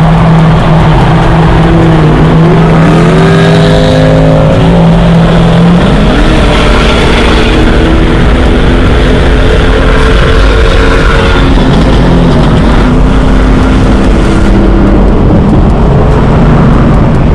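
Mercedes-Benz car engine pulling hard under acceleration, its pitch gliding upward a few seconds in and then holding at shifting steady pitches, over loud road and wind noise.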